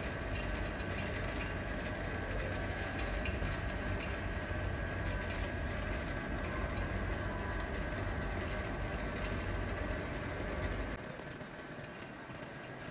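Screen laminating machine running its vacuum cycle: a steady pump hum and rush. The low hum drops away about eleven seconds in.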